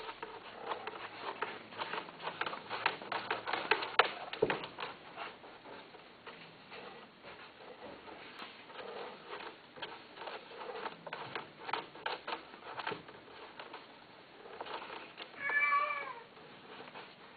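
Cat meowing once, a single call of about a second near the end, after a long run of scattered clicks and taps.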